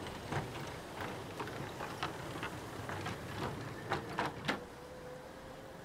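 Bicycle rattling as it rolls over boardwalk planks and paving: a run of irregular clicks and knocks, the loudest a quick cluster about four seconds in, after which it goes quieter with a faint thin tone.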